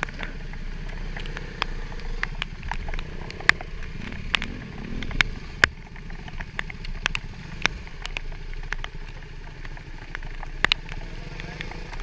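KTM motorcycle engines idling with a steady low hum, overlaid with many sharp, irregular clicks from rain striking the camera housing.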